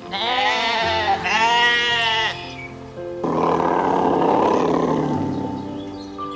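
An animal bleats twice over background music, each call bending in pitch. About three seconds in, a longer, rough, noisy animal call follows.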